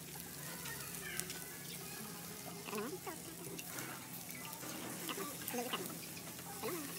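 Pork intestines and mushrooms sizzling on a wire grill over charcoal, a steady hiss, with a few light clicks of metal tongs against the grate.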